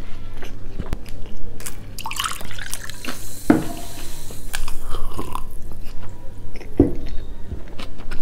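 Close-miked chewing with wet mouth clicks and smacks. About midway comes a sip from a glass of drink with a liquid slurp, then a swallow.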